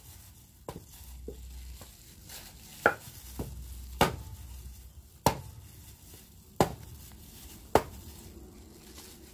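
Claw hammer striking fresh cacao pods on a wooden chopping board to crack them open: a series of sharp knocks, about five loud ones roughly a second apart, with lighter taps before and between them.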